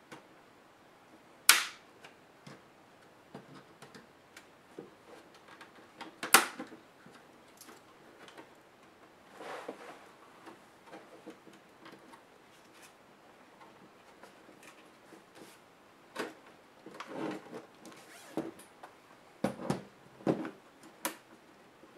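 Hands handling a plastic laptop case: two sharp clicks about 1.5 and 6.5 seconds in, scattered small ticks, then a run of knocks and bumps near the end as the laptop is closed, turned and set back down on the table.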